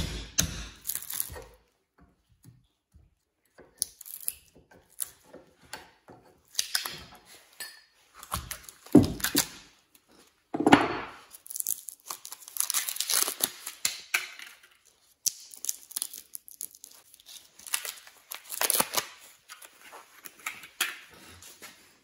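The windings of a microwave oven transformer being pried and pulled out of its steel core: irregular scraping and tearing of the coil and its insulation, with a few sharp knocks about the first second. The winding is copper-coated aluminum wire.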